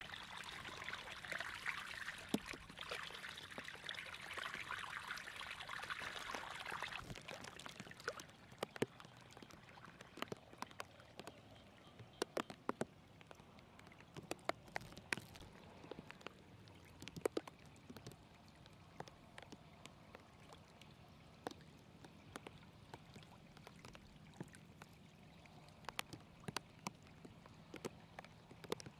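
Muddy water pouring and splashing into a shallow pool for about the first seven seconds. It then gives way to a quieter trickle of shallow water running over grass and mud, with scattered sharp ticks and small splashes.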